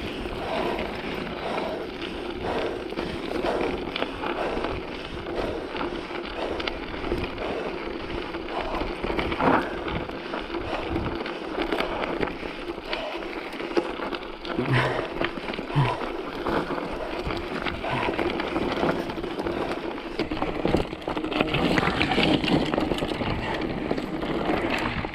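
Mountain bike ridden over rough dirt singletrack: a continuous rumble of the tyres on dirt and stones, broken by frequent sharp knocks and rattles from the bike.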